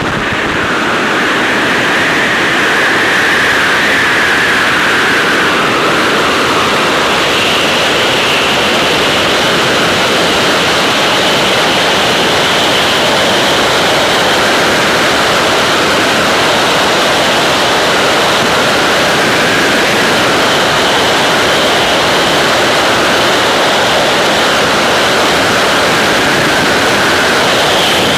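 Freefall wind rushing over the microphone: a loud, steady roar with a faint high whistle running through it.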